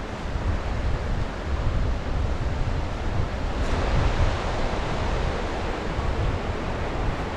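Sea waves washing onto the shore, with wind buffeting the microphone in a low rumble. A wave's wash swells about halfway through.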